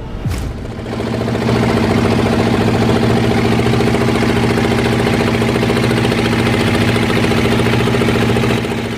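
Boat engine running steadily with a fast, even knocking beat. It grows louder about a second and a half in and fades away near the end.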